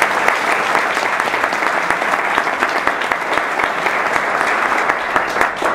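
Audience applauding: dense, steady clapping that dies away at the end.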